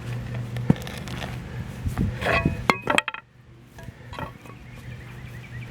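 Metallic clinks, taps and scraping as a padlock with a duckbill tool driven into its shackle is dug out and handled, with a few short ringing clinks about halfway through.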